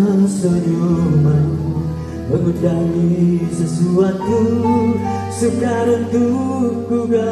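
Live band music: a slow ballad with guitar, and a male singer's voice held over it through the concert sound system.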